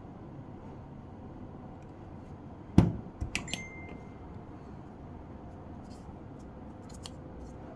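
A camera being handled: one sharp knock, then a few clicks and a short high beep, with faint ticks later.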